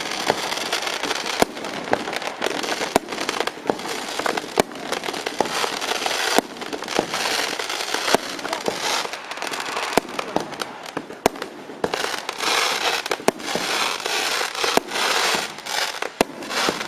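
Fireworks and firecrackers going off from a cart: a dense, continuous crackle with many sharp bangs scattered through it.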